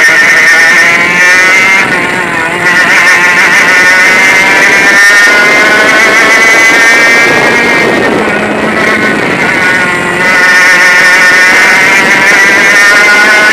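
100cc two-stroke kart engine at full throttle on track, heard from the driver's helmet, its buzzing note climbing as it accelerates. The note drops briefly about two seconds in and again around eight to ten seconds in as the kart slows for corners, then picks up again.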